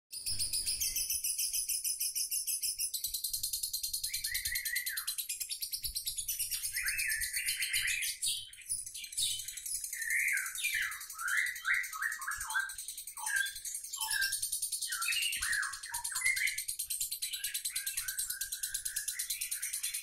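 Lovebird singing its long, continuous 'ngekek' chatter: a fast, unbroken stream of very high shrill notes. From about four seconds in, quick down-slurred chirps join in lower down.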